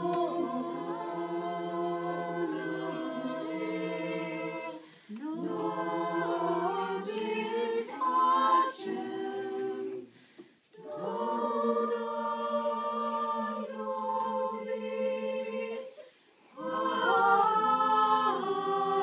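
Several voices singing a cappella in harmony, holding chords in phrases separated by short pauses about every five seconds.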